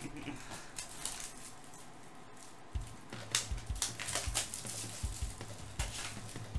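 Cardboard box of 2017 Topps Finest trading cards being handled and opened by hand: scattered crinkles, taps and rustles of cardboard and packs. A low hum comes in partway through.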